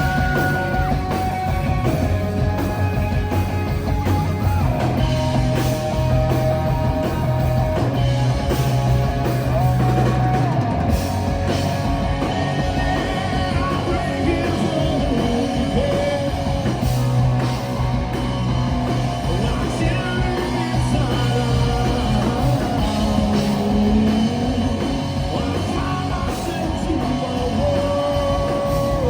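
Live rock band playing: drums, bass and electric guitar, with a held, gliding melody line above them and no clear sung words.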